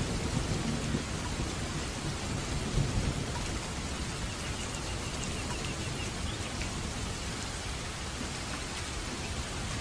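Steady rain hissing, with a low thunder rumble that dies away over the first few seconds.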